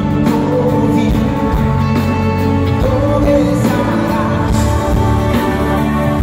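Live pop-rock band playing with a male lead singer, joined by female backing vocalists.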